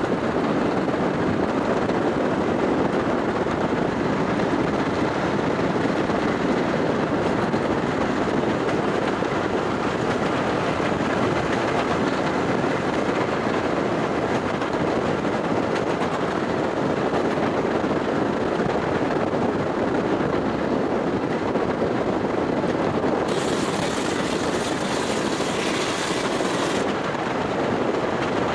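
Steam locomotive running at speed, heard from a vehicle pacing it alongside: a steady, dense rush of locomotive exhaust and running noise blended with road and wind noise. A sharper hiss joins for a few seconds near the end.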